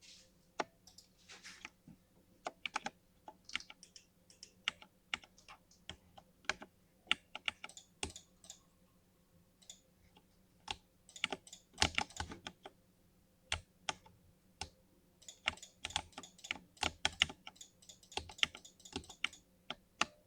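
Typing on a mechanical gaming keyboard with linear switches: irregular keystroke clacks, with quicker flurries of keys about halfway through and again later, broken by short pauses.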